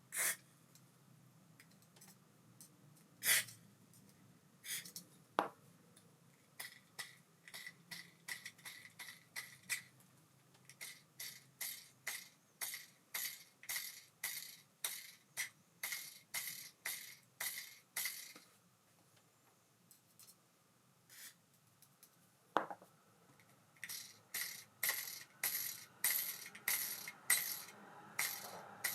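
Abu Garcia Ambassadeur 5500C baitcasting reel being handled: a few sharp metal clicks, then a long run of rhythmic ringing ticks at about two a second. After a short pause with a couple more clicks, the ticking starts again near the end.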